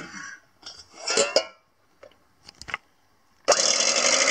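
A few clinks and knocks of metal beaters against a stainless steel bowl, then about three and a half seconds in an electric hand mixer switches on and runs steadily, its beaters whisking egg whites in the steel bowl; the motor's pitch rises a little as it comes up to speed.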